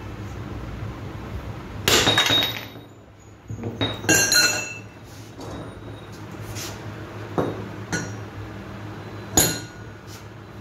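A hammer striking steel, a handful of irregular, sharp metallic clanks that ring briefly, the loudest about two, four and nine seconds in. It is the motorcycle's bent steel frame being knocked straight cold, without heat.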